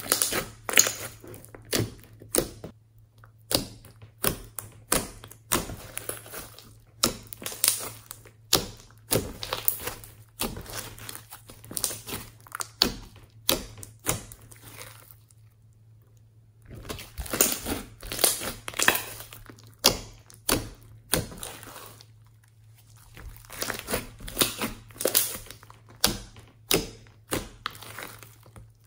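Homemade clear slime mixed with beads and glitter being kneaded and squeezed by hand, giving runs of sharp clicks with two short pauses.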